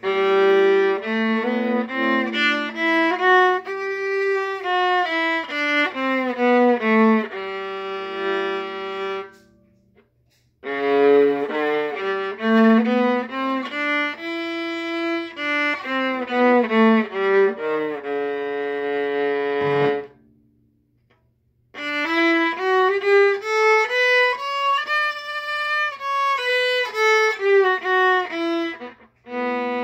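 A violin playing scales: runs of single notes stepping up and then back down, each ending on a held note, with short pauses between the runs.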